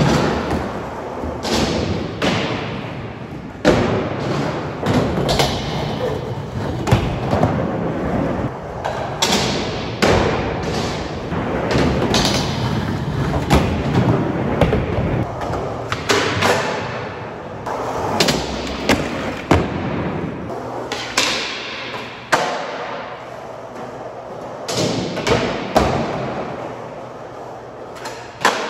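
Skateboard wheels rolling on smooth concrete, broken by many sharp clacks and thuds of the board popping and landing, about one every second or two.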